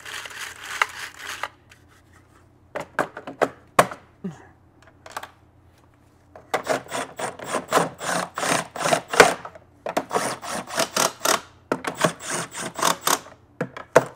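Cordless driver running in the screws of a backpack blower's recoil starter housing in three spells of rapid rattling, with short pauses between screws. Earlier there is a brief rasping and a few clicks as the starter housing is handled and set in place.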